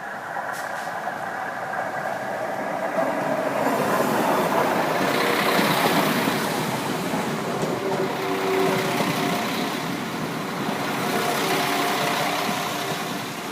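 Class 172 Turbostar diesel multiple unit passing over the level crossing, its diesel engines and wheels on the rails heard together. It is loudest about five or six seconds in and swells again near the end.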